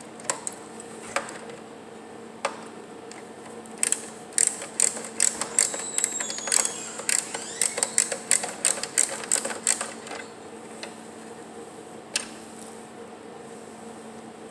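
Ratcheting Phillips screwdriver clicking as it backs out motherboard screws in a desktop PC's steel chassis. A few single clicks come first, then a quick run of clicks lasting about six seconds, and one more click a little later.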